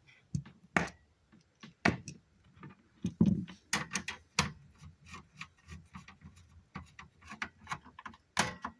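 Irregular small metal clicks and taps of a screwdriver fitting and turning a motherboard screw into a PC case, with a dull knock about three seconds in.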